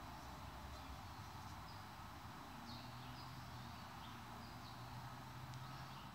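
Quiet room tone with a low steady hum, and faint short chirps of birds now and then.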